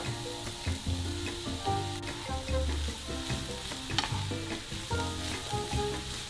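Diced mushrooms, grated carrot and onion sizzling in hot oil in a frying pan while a wooden spatula stirs them, with a sharp tap against the pan about four seconds in.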